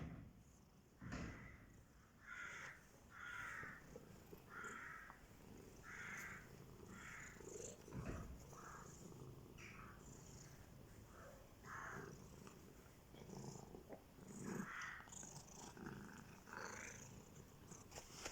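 Domestic cats purring faintly and steadily, with short higher cries or meows recurring about once or twice a second.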